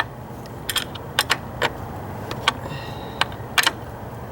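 Sharp metallic clicks and clinks, about eight of them at irregular intervals, from hand tools and the battery hold-down hardware being fitted and tightened.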